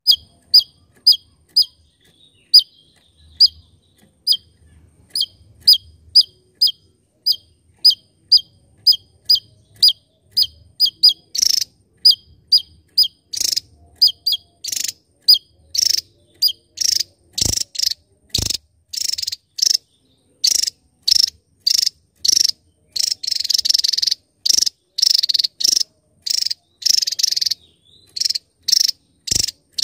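Javan tesia singing a long, rapid series of short, sharp, high notes, about two a second. About a third of the way in, the notes turn harsher and buzzier. A couple of faint clicks can be heard about halfway through.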